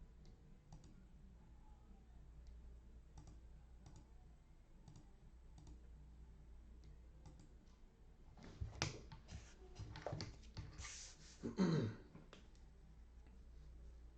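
Faint scattered clicks, then a few seconds of louder handling noise: a run of clicks and knocks with a short scraping sweep near the end.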